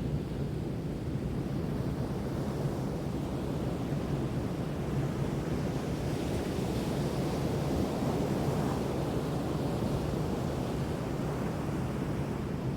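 Ocean surf: waves breaking and washing ashore in a continuous rush, swelling a little louder around the middle.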